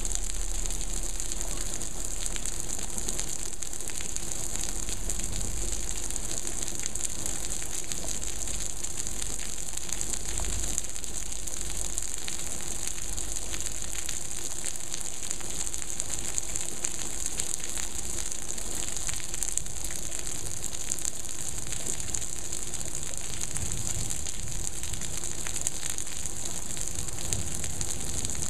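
Heavy monsoon rain falling steadily: an even, unbroken hiss of rain on the ground, roofs and pool water.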